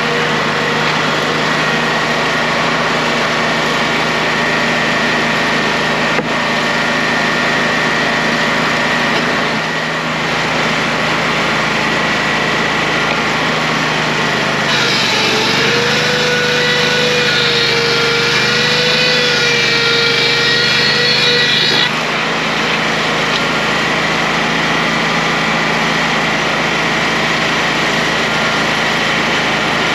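Sawmill machinery running steadily: a Detroit diesel engine, a blower and a generator, with a board edger turning over. From about 15 to 22 seconds a louder, wavering whine rises over the steady noise as a board goes through the edger's saws.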